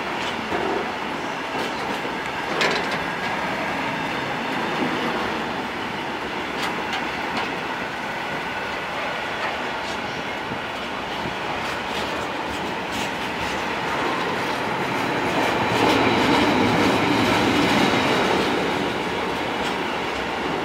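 Freight train of covered wagons rolling past: steady wheel-on-rail rumble with sharp clicks as the wheels cross rail joints, and a faint high wheel squeal joining in about two-thirds of the way through. It grows a little louder for a few seconds near the end.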